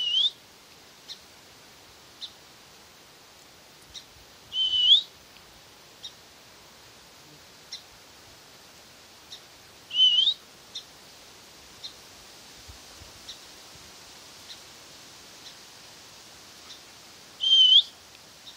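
A bird calling: a short whistled note that dips and then rises, given four times several seconds apart, with faint short chips in between.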